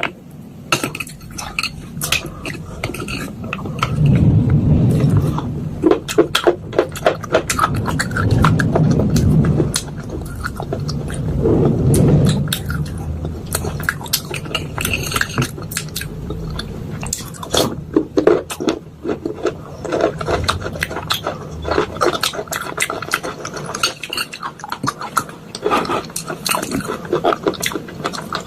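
Metal spoon crushing and scraping chunks of clay, slate pencil and chalk in a bowl. Many sharp clicks and crackles, with heavier, louder crunching presses about four, eight and twelve seconds in.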